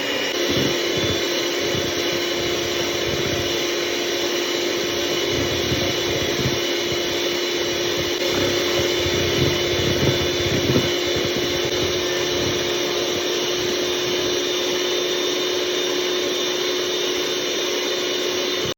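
A loud motor-driven machine running steadily: a constant whirring noise with a steady hum, like a power tool or a household appliance such as a vacuum cleaner.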